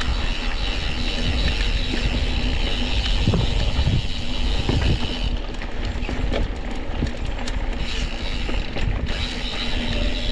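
Mountain bike rolling fast down a dirt singletrack: tyre noise and rattling of the bike, with the rear hub's freewheel buzzing while coasting through about the first half.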